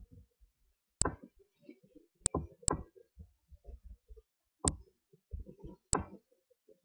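Computer mouse button clicking five times at irregular intervals, with faint low bumps between the clicks.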